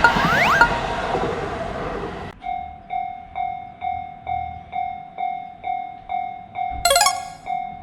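Japanese level-crossing alarm ringing its repeated electronic "kan-kan" bell tone, a bit over two strokes a second. It starts abruptly about two seconds in, after a noisy passage with repeating rising sweeps cuts off. A brief bright metallic burst sounds once, about seven seconds in.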